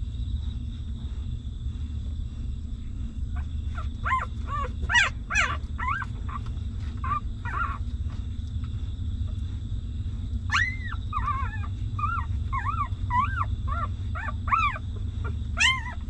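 Newborn puppies whimpering and squealing in short, high calls that rise and fall, in two bouts: one about four seconds in and another from about ten seconds in. A steady low rumble runs underneath.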